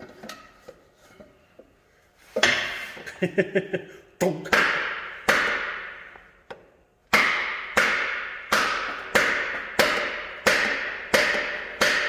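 Hammer blows knocking a cylinder liner loose in a John Deere 5020 engine block, each strike ringing briefly. A few scattered strikes come first, then after a short pause a steady run of blows about one and a half a second.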